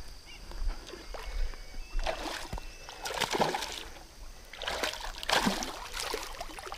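Water splashing at the surface of a river a few times, in about four short splashes spread over several seconds.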